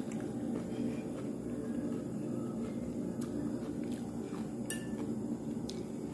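Scattered light clinks of ceramic dishes and metal cutlery over a steady low restaurant din, the sharpest clink about three-quarters of the way through.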